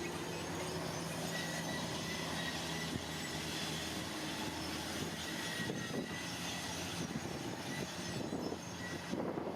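Heavy earthmoving machinery at work: an engine running steadily, with scattered knocks and clanks.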